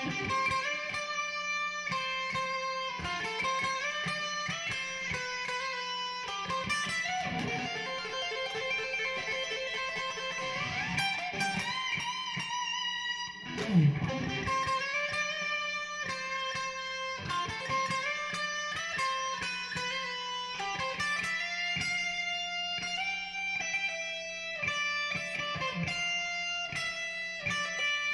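Electric guitar played with a light crunch tone, only slightly distorted and close to its clean sound, in a steady run of picked notes and chords. A sudden loud low swooping note stands out about halfway through.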